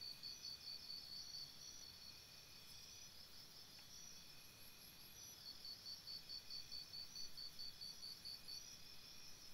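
Faint forest insects calling: several high-pitched pulsing trills overlap. The most prominent one beats about four to five times a second, stops about a second and a half in and starts again about five and a half seconds in.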